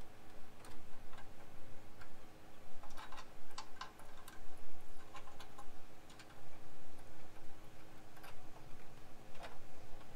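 Small clicks and taps of hands and hardware working on a newly fitted aluminum radiator, coming irregularly and in a few quick clusters, over a faint steady hum.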